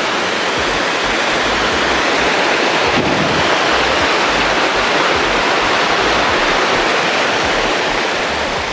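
Artificial cascade waterfall rushing steadily over rocks close by, with low buffeting of wind on the microphone underneath.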